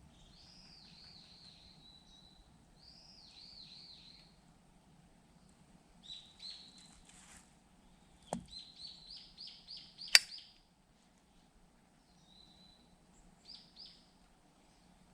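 Small songbird singing phrases of quick, high down-slurred notes, repeated every few seconds. A low thud comes about eight seconds in and a single sharp crack, the loudest sound, about two seconds later.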